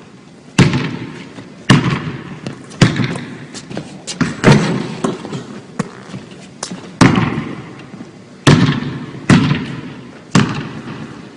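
Basketball bouncing on a hardwood gym floor: about ten sharp, loud thuds, irregularly spaced roughly a second apart, each echoing on through the large hall.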